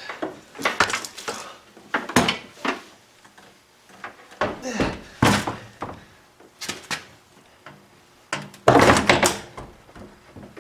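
Metal clunks and knocks from a pickup-truck door and its hinges as the heavy door is lifted and worked into line to take the hinge pins, with a louder, longer clatter near the end.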